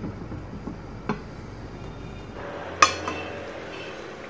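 Aluminium pot lid knocking against the rim of a large aluminium cooking pot as it is handled. There is a light knock about a second in, then a sharper metallic clink with a brief ring near three seconds and a softer tap just after.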